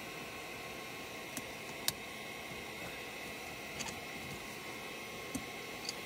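Steady low hiss with a faint hum, broken by a few small, sharp clicks of pliers being handled around the plastic spa plumbing.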